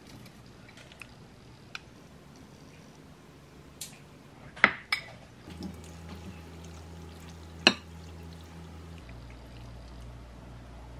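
Kitchen clatter of a spatula and frying pan knocking against a ceramic bowl as stir-fried udon noodles are scraped out of the pan. There are a few sharp knocks, two close together a little before halfway and the loudest one later, over a low room hum.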